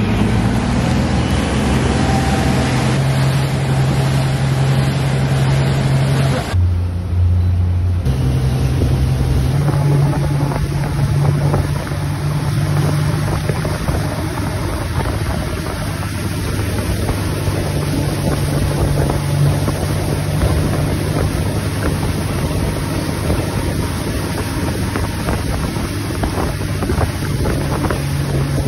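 Motorboat engine running steadily, with wind noise on the microphone.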